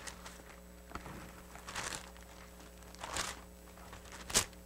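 Thin Bible pages being leafed through, rustling in three short swishes, the last and sharpest near the end, with small handling taps between.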